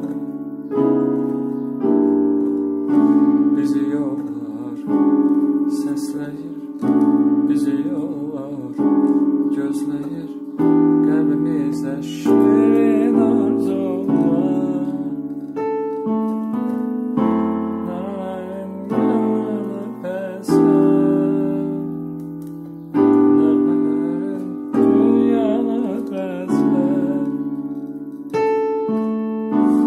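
Yamaha digital piano playing a slow instrumental passage of chords, a new chord struck about every two seconds and each one fading away before the next.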